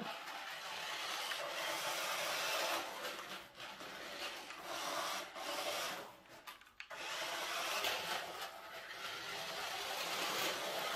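A New Bright Forza Camaro toy radio-control car's small electric motor and gears run with a steady, noisy whir as it drives and spins about on a slick wooden floor. The sound cuts out briefly about six seconds in, then starts again.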